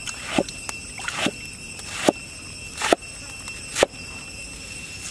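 Knife chopping through a bunch of enoki mushrooms onto a wooden chopping board, five even chops a little under a second apart.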